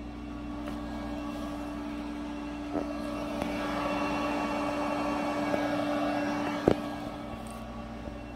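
Cooling fan of a Volcano s5 intravascular ultrasound imaging system running with a steady hum and whir, swelling louder in the middle. There is a small click about three seconds in and a sharp click near the end.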